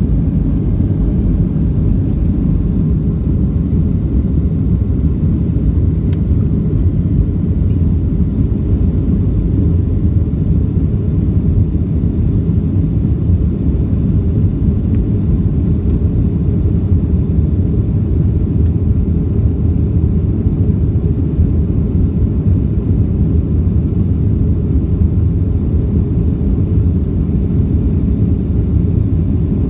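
Boeing 737-800 with CFM56-7B turbofan engines, a steady low rumble of engines and airflow that holds even throughout.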